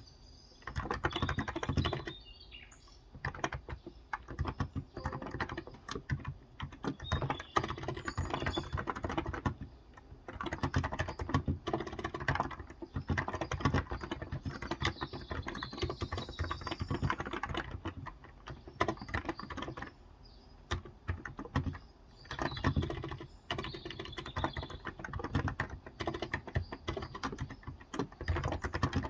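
Steady typing on a Cox Endeavor electrostatic-capacitive (Topre-style) tenkeyless keyboard with light 35 g keys, in quick runs of keystrokes broken by short pauses. Birds chirp faintly in the background.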